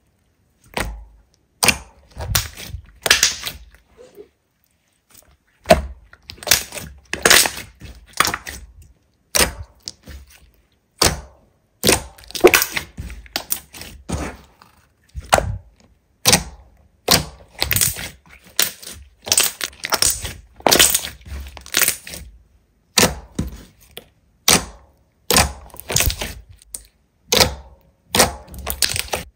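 Slime being squeezed and pressed by hand, each press giving a crackling crunch, about one a second, with a short pause about five seconds in.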